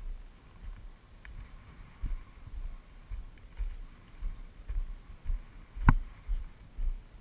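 Footsteps walking over loose gypsum rubble, heard as low thuds about twice a second, with one sharper crunch about six seconds in.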